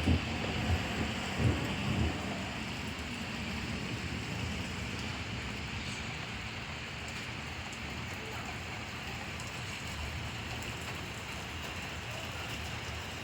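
Thunder from a nearby lightning strike rumbles in a few low rolls over the first two seconds, then steady rain falls.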